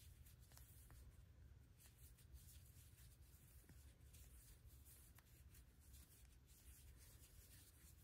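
Near silence, with the faint rubbing of double-stranded cotton yarn and a few light clicks from a crochet hook as stitches are worked.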